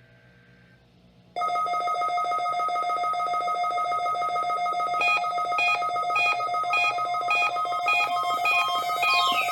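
Weather radios sounding their alert alarms for the weekly NOAA Weather Radio warning-alarm test. A loud, steady buzzing alarm tone starts about a second and a half in. About five seconds in, a pulsing two-pitch beep joins it, and a falling sweep begins near the end.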